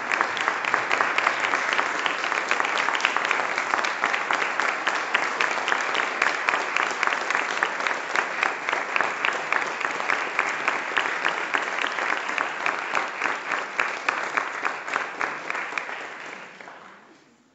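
Audience applauding steadily with many hands clapping, dying away near the end.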